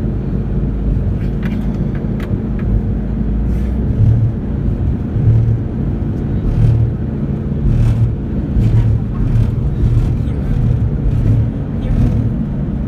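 Steady low engine rumble, with a pulsing low throb about once a second from about four seconds in and a few faint clicks.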